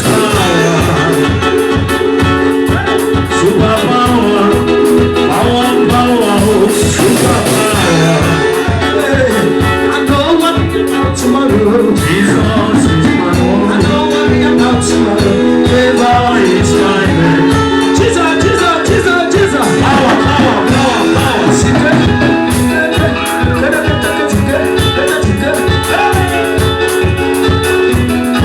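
Gospel song with singing over a band: guitar and a steady drum beat.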